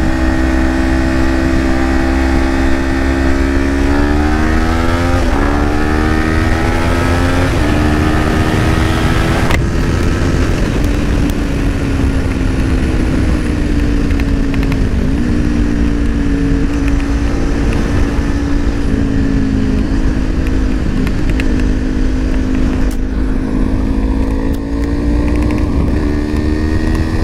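Motorcycle engine running at highway speed, with wind rushing over the microphone. The engine's pitch climbs and drops back twice about a quarter of the way in, then holds steady.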